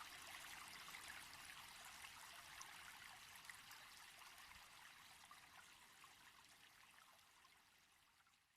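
Faint trickling water with no low end, fading steadily away to silence.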